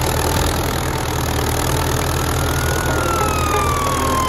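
Belarus tractor's diesel engine running steadily under load while pulling a disc harrow. A whistling, siren-like tone rises slightly and then slowly falls through the second half.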